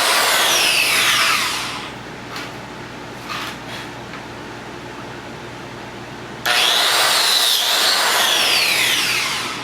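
Plate (biscuit) joiner cutting biscuit slots in pine boards: its high-pitched motor runs, then winds down with a falling whine. After a couple of light knocks, it starts again abruptly and winds down once more.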